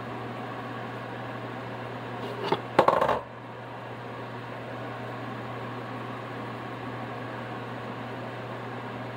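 Steady fan-like hum, with a short run of sharp metal clinks about two and a half seconds in as a fork is worked into a pan of rice, knocking against the pan.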